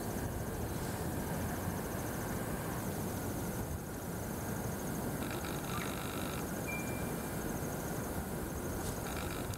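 Lakeside wetland ambience: frogs calling twice, about halfway through and again near the end, over a fast, steady insect trill. Under both runs an even, steady rushing noise.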